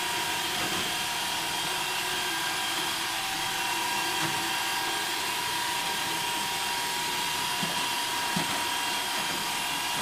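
iRobot Roomba Dirt Dog robot sweeper running: a steady whirring with a thin, high, even whine from its motors and counter-rotating brushes sweeping a bare wood floor.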